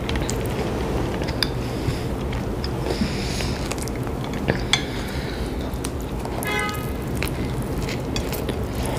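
Close-miked sandwich eating: hands lifting a sub sandwich half off a plate with soft clicks and squishes of bread and fillings, and a bite into it near the end, over a steady low rumble. A brief squeak sounds about two-thirds of the way through.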